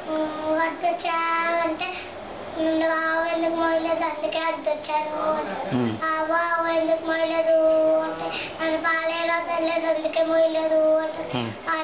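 A young boy singing, holding long, steady notes, with a short break about two seconds in.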